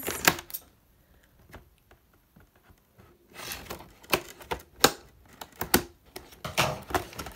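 Scissors clicking and snipping at packing tape on a cardboard toy box, a few sharp snips near the start, then a quiet pause, then a run of scattered clicks with the box being handled.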